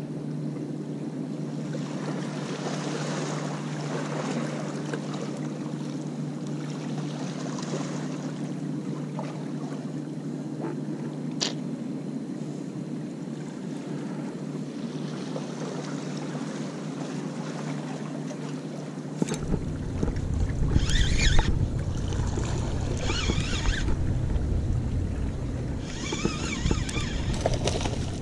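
Sea water washing against jetty rocks under a steady low hum; about two-thirds of the way in, wind starts buffeting the microphone. Near the end come several bursts of splashing at the water's surface.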